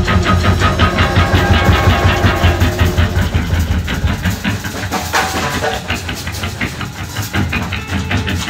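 Noise-rock band playing live: a loud, dense wall of rapidly strummed electric guitar over fast drumming, the strokes coming many times a second.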